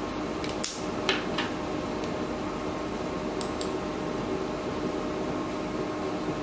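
A few light, sharp clicks, six in all in two or three pairs, over a steady hum with faint level tones. The clicks most likely come from handling the fiber connector during a remate-and-measure cycle.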